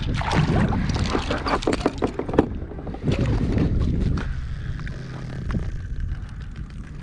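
Water splashing and lapping around a kayak on the water, with wind buffeting the microphone. The splashing is busy for the first few seconds, then settles to a quieter, steady hiss.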